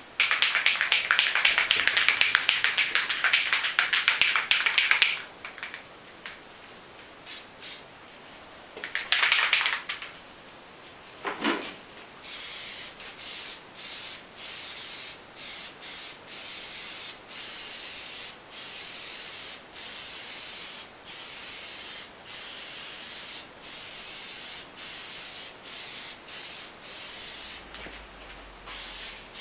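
Aerosol can of Plasti Dip rubber coating spraying. There is a loud hiss for about five seconds, a second shorter burst, and then a long run of quieter spray passes broken by brief gaps a little more than once a second.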